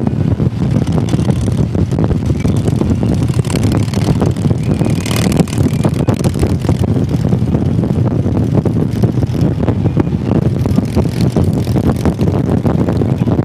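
Motorcycle engine running steadily at riding speed, with heavy wind rush buffeting the microphone.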